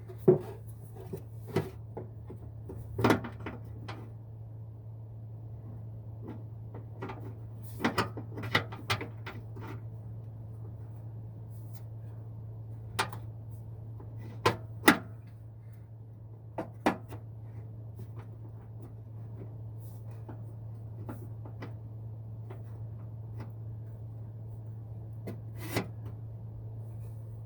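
Scattered clicks and knocks of an adjustable wrench being set and fitted to the mounting bolts, over a steady low hum.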